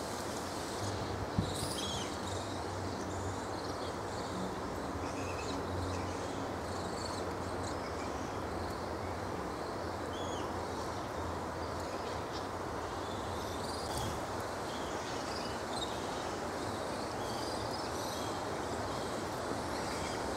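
Steady outdoor background ambience: a low, even drone with faint, short high chirps scattered through it.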